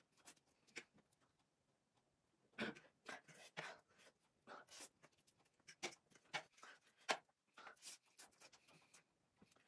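Faint eating sounds from spicy noodles: irregular chewing and slurping, with short clicks of a fork and spoon against the plate, the sharpest about seven seconds in.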